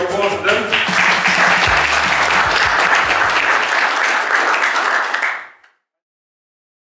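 Audience applauding, with music faintly underneath; it cuts off suddenly about five and a half seconds in.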